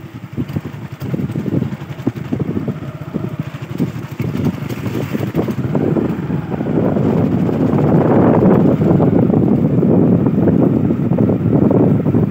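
Wind buffeting the microphone from a moving vehicle, a low fluttering rumble with the vehicle's running noise beneath. It grows louder around the middle and stays up.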